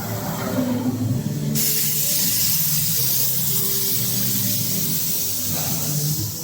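CNC V-grooving machine working sheet metal: a steady high hiss starts suddenly about a second and a half in and carries on, over a low steady hum whose tones shift.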